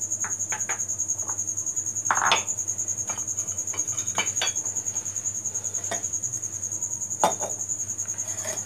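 Crickets chirping in a steady, fast pulsing trill. Over it come scattered clinks and knocks of dishes, and a steel sieve being moved and set down on a tiled counter.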